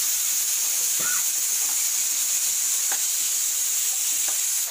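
Sliced onions and green and dried red chillies sizzling steadily in sesame oil in a nonstick pan as they sauté, with a few soft knocks of a wooden spatula stirring them.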